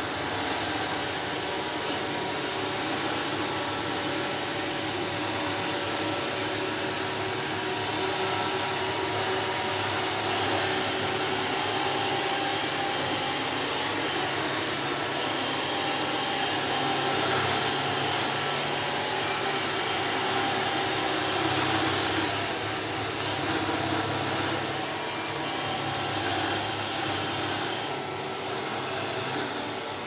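iRobot robot vacuum running across a wooden floor: a steady whir of its suction motor and brushes that swells and eases a little as it moves.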